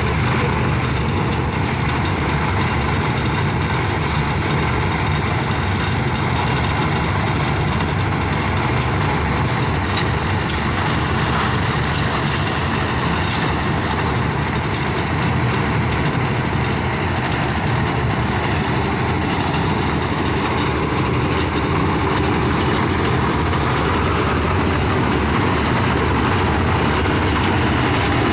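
Lift concrete mixer machine running steadily, its engine and turning drum making a continuous mechanical noise, with a few faint clicks about halfway through.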